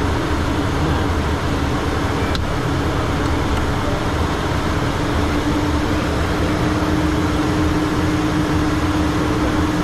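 Steady flight-deck noise of a Learjet in flight: the drone of its jet engines and rushing airflow, with a steady hum underneath.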